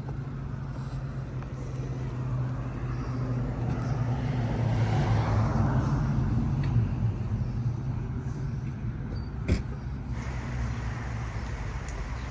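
A vehicle passing, its rush of noise swelling and fading in the middle, over a steady low hum, with one sharp click about nine and a half seconds in.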